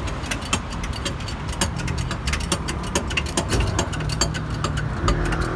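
Steady low rumble of road traffic, with a rapid, irregular run of small sharp clicks and knocks over it.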